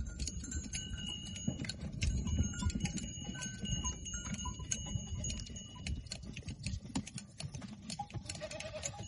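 Shears clipping through goat hair in a run of irregular snipping clicks, over a low outdoor rumble, with goats bleating.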